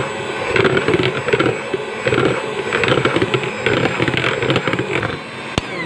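Electric hand mixer running, its wire beaters rattling against a plastic bowl as they beat margarine, egg yolk, milk powder and cornstarch into a crumbly cookie dough. Near the end there is a click and the motor starts to spin down, falling in pitch.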